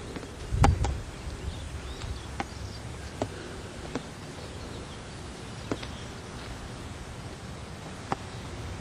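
Outdoor background noise on a camcorder microphone. A brief low rumble of wind or handling comes about half a second in, followed by a faint steady hiss with a few scattered light clicks.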